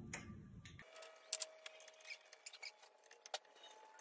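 Faint scattered metallic clicks and taps of hand tools on bolts at the rear brake caliper of a Razor dirt bike, with a sharper tap a little after three seconds in.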